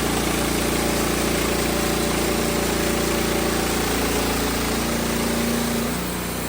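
Wood-Mizer LX55 bandsaw sawmill running steadily while milling a log, its engine and blade making a loud, even mechanical noise. The sound eases a little near the end, then cuts off suddenly.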